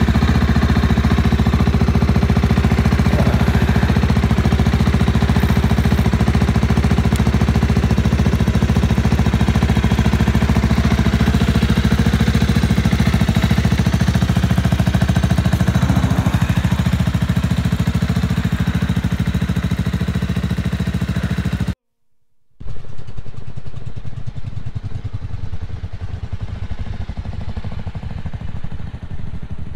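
Bajaj Avenger 220 Cruise's single-cylinder engine idling steadily just after a cold start. About 22 seconds in, the sound cuts out for a moment, and a quieter engine sound follows.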